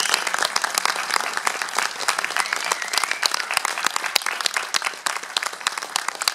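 Audience applauding: many people clapping at once in a dense, even patter.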